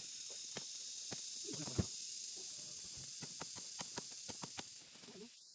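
Twigs and branches of a fallen tree snapping and rustling as they are pulled and handled, with scattered sharp clicks and one louder crack about two seconds in. A steady high insect drone sounds behind it and stops near the end.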